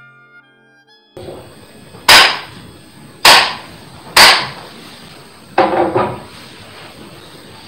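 Three sharp cracks of a jukbi, a Korean Buddhist split-bamboo clapper, struck against the palm about a second apart: the traditional signal to open the dharma talk. About two seconds later comes a short wooden clatter as it is set down on the desk.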